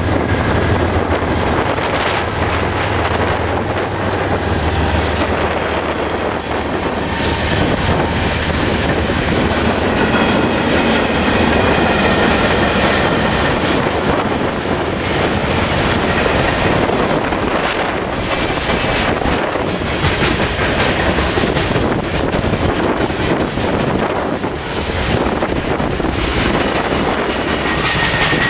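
Diesel freight train passing close by: the lead GE C44-9W and ES44DC locomotives' engines run past in the first few seconds, then the freight cars roll by with a steady clatter of wheels on rail, broken by several brief high-pitched wheel squeals in the middle.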